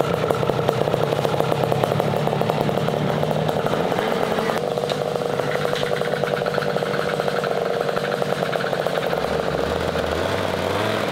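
Tuned 70 cc two-stroke racing scooter engine running steadily, its pitch holding level throughout.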